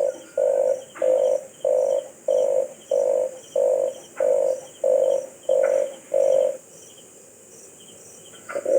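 Red collared dove cooing: a regular series of about eleven low coos, roughly one and a half a second, that stops about two-thirds of the way through. A faster run of coos begins right at the end, over a faint steady insect hiss.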